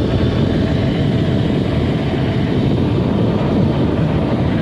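Steady low rumble of an idling big-rig diesel engine close by.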